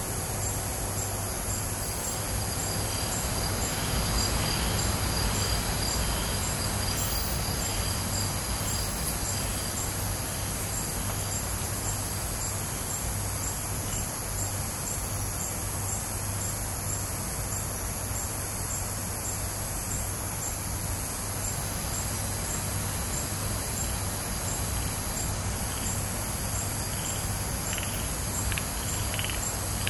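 Night chorus of crickets and other insects: steady high-pitched trilling with a regularly pulsing high call, over a low steady hum.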